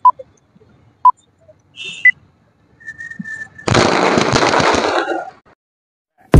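Two short countdown beeps a second apart, then a firecracker goes off on the ground: a brief whistle-like tone, followed by about a second and a half of fizzing and crackling as it sprays sparks.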